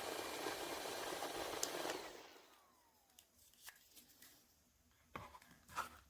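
Small electric fan running with a steady rush of air, then switched off about two seconds in, its motor whine falling in pitch as the blades spin down. A few light clicks and taps follow.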